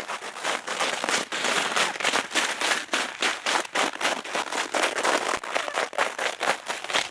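Footsteps crunching through snow at a brisk walking pace, a quick run of crisp crunches several times a second.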